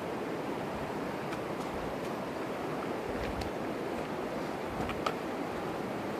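Shallow river water rushing steadily over rocks and cobbles: the Virgin River flowing through the slot canyon. A few light clicks sound over it, the sharpest about five seconds in.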